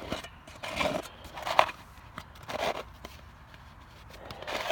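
Sheet-metal sections of an adjustable dryer vent elbow scraping against each other as they are twisted round, in about four short rasping bursts.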